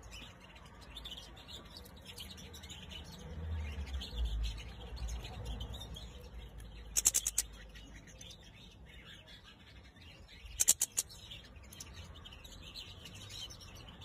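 European goldfinches calling: faint high twittering, broken twice by a short burst of rapid, sharp notes, about halfway through and again a few seconds later.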